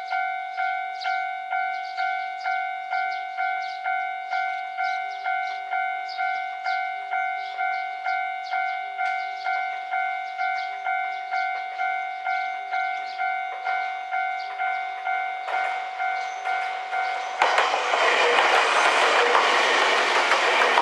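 Japanese level-crossing warning bell ringing at an even pace, about two strokes a second. A train can be heard coming from about five seconds before the end. About three seconds before the end it passes through the crossing loudly, wheels clattering on the rails and covering the bell.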